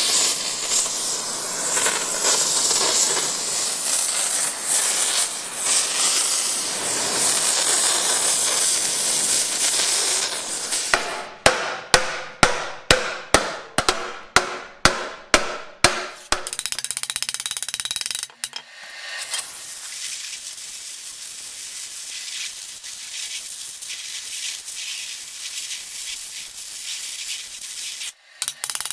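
Gas torch hissing steadily as it heats a sheet-iron pan blank, broken midway by about a dozen sharp hammer blows on the hot sheet, a little over two a second, after which the torch hisses on more quietly.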